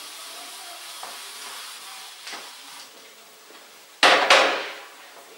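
Felt eraser rubbing across a whiteboard, a soft swishing hiss, then a sharp knock about four seconds in.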